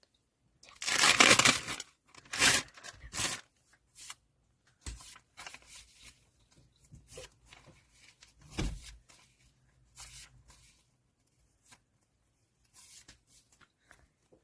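Photocard packaging being torn and handled: one long loud tearing sound about a second in, two shorter rips soon after, then scattered faint crinkles and taps.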